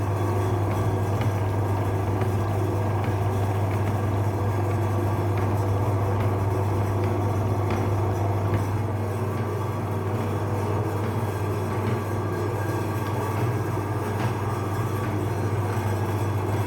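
Electric meat grinder running steadily with a strong, even low hum, faint ticks now and then, as it grinds jelly candies.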